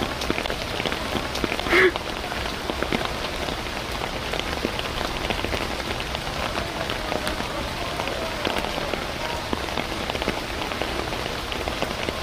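Steady rain pattering on surfaces, a dense hiss of fine ticks, with one short louder burst about two seconds in.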